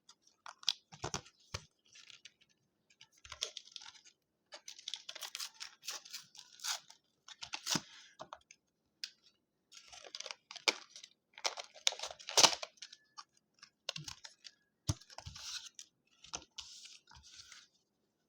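Retail packaging of a flash drive being torn open by hand: irregular crinkling, crackling and tearing in bursts, broken by sharp snaps, the loudest about twelve seconds in.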